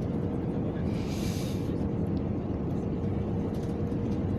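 Airliner cabin noise during the landing approach: a steady rumble of jet engines and airflow with a faint steady whine. A brief hiss about a second in.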